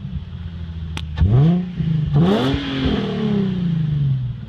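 A 2007 Nissan 350Z's 3.5-litre V6 revved twice through a Magnaflow 2.5-inch dual-muffler catback exhaust that is still being broken in. Each rev climbs quickly from idle, and the second one sinks slowly back to idle.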